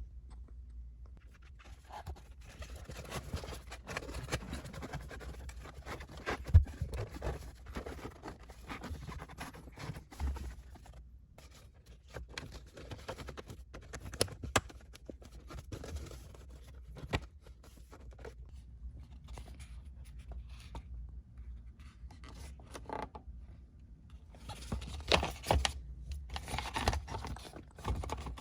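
Scraping, scratching and small clicks of parts being handled during hand work on car interior trim, with a sharp knock about six seconds in and a louder run of scraping near the end.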